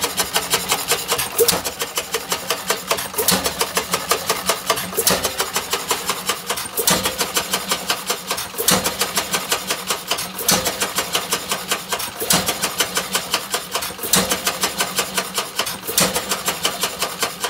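Madison stationary engine running: a sharp exhaust bang about every two seconds, with the engine coasting on its flywheels between firings over a fast, even clatter of valve gear and crank.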